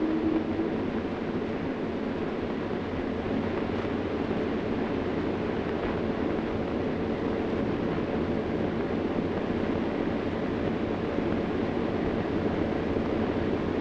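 Army tugboat under way pushing a barge: its engine running steadily under a constant wash of wind and water noise.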